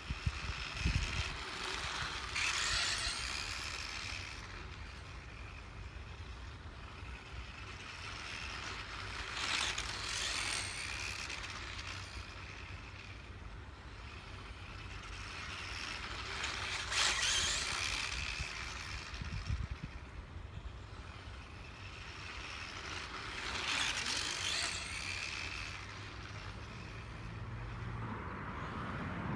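A high, wavering mechanical squeak that comes back four times, about every seven seconds, each lasting about two seconds. There are two low clacks, one about a second in and one a little past the middle.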